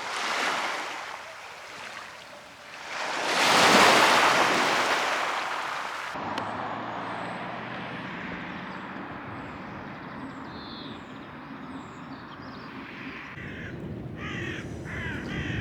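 Sea waves washing onto the shore in two swells, the second and louder one peaking just before 4 seconds; after a cut about 6 seconds in, a steady outdoor background, then near the end a run of harsh bird caws.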